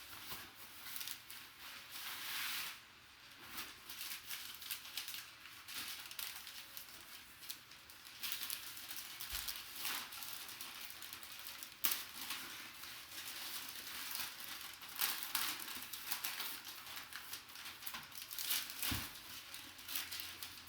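Packaging being unwrapped by hand: an irregular crinkling and tearing rustle, with scattered sharp clicks and taps and one louder click about twelve seconds in.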